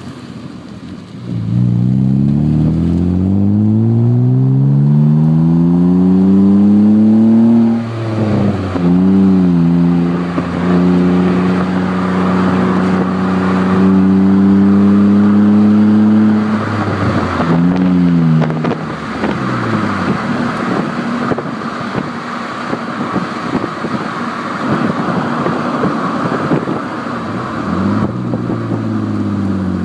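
BMW exhaust with an aftermarket Megan Racing muffler, heard right at the tailpipes while driving: the engine note climbs steadily under acceleration, drops suddenly at a gear change, holds a steady drone at cruise, then drops again at another shift. After that a rushing noise of wind and road dominates, with the exhaust fainter, until the engine note climbs again near the end.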